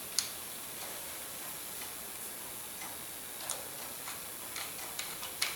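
Small screw being driven by hand into the bottom of a pepper mill's grinding mechanism: faint, scattered clicks of metal on the mill parts, the sharpest just after the start, over a steady hiss.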